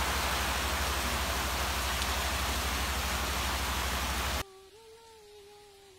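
Steady heavy rain hiss that cuts off suddenly about four seconds in, leaving a faint wavering tone held for about two seconds.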